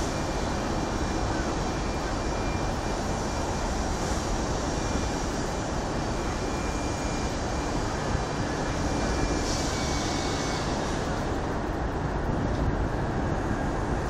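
Steady city traffic rumble from the elevated expressway across the river, with wind buffeting the phone's microphone. A faint, high, steady tone in the background stops about ten seconds in.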